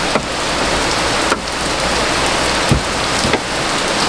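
A steady, loud hiss like rain on a roof, with a few light knocks as the metal window regulator is shifted and lined up inside the door, one near the start and two about three seconds in.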